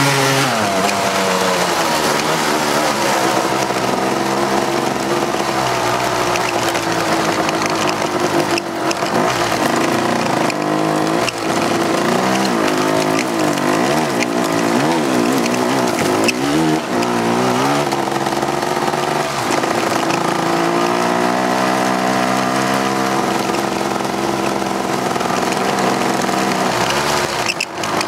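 Four-wheeler (ATV) engine running hard on an off-road trail, its pitch rising and falling repeatedly with the throttle, with a few sharp knocks along the way.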